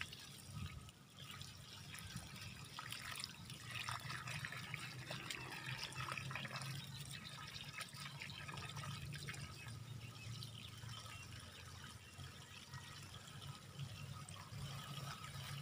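Water spraying and splashing from a leaking joint in a black plastic water hose line onto grass and wet soil, a steady hiss with small ticks as the pipe is handled.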